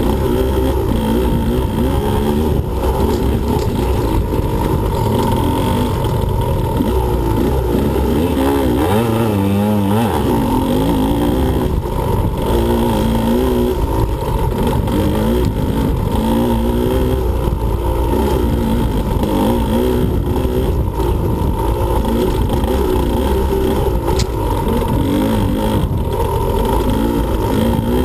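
2015 Husqvarna TE125 125cc two-stroke dirt bike engine being ridden hard, its pitch rising and falling continually as the throttle is opened and closed, with a quick run of rising and falling revs about nine to ten seconds in.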